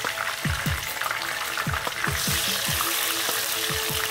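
Pea eggplants and leaves sizzling in hot oil in a wok, with frequent short pops. The sizzle grows louder about halfway through as a spatula stirs them.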